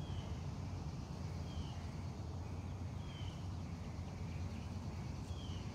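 A bird calling four times in short, high notes that dip slightly in pitch, over a steady low rumble.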